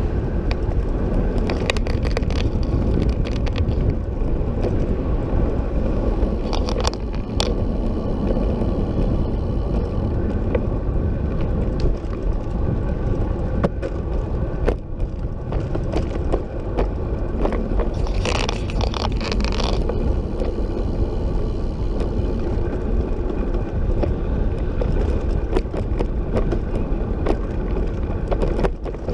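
Recumbent trike rolling along a paved bike path, heard through a camera mounted on the trike: a steady rumble of tyres and frame with frequent small clicks and rattles.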